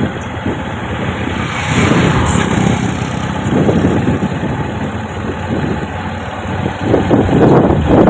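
JCB backhoe loader's diesel engine running as the machine drives along, growing louder near the end as it comes close.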